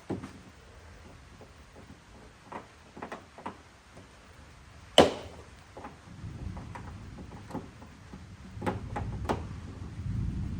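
Clicks and taps of a lock cylinder and its hatch hardware being fitted by hand into a Fox-body Mustang's rear hatch, with one sharp loud knock about five seconds in and low rumbling handling noise in the second half.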